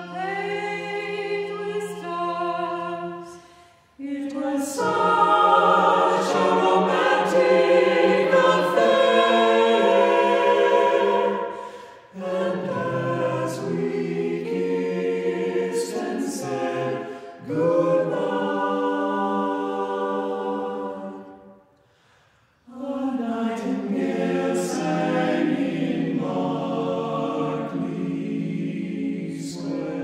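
Mixed-voice a cappella vocal ensemble singing a close-harmony jazz arrangement in sustained, shifting chords. It sings phrase by phrase with short breaks between phrases.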